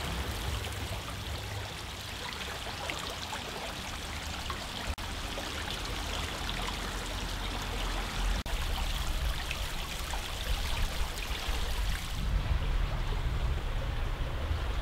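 Small creek flowing, a steady trickling and burbling of water. About three-quarters of the way through the sound turns duller, with a low rumble underneath.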